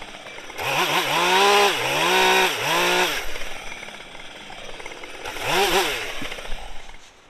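Husqvarna 550 XP two-stroke chainsaw revving: three quick rising-and-falling bursts of throttle, then one more about five seconds in, dropping back to idle between them.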